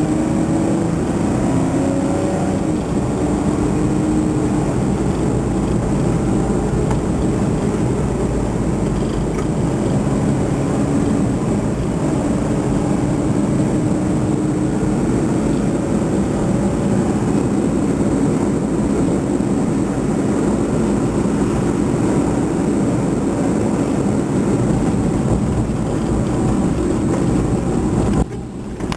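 A vehicle's engine running on the move: a steady rumble with an engine note that shifts in pitch, dropping away near the end.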